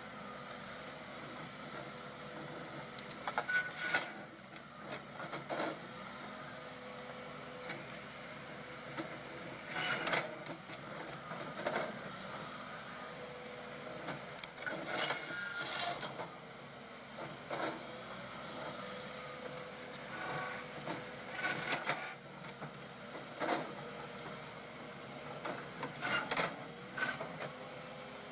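Bracke C16 felling head on a Timberjack harvester crane gripping and cutting slender young stems: short bursts of wood cracking and snapping every few seconds over a steady low machine hum.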